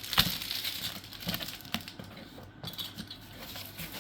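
Cardboard box and packing being handled: scattered light knocks and rustles, the sharpest just after the start.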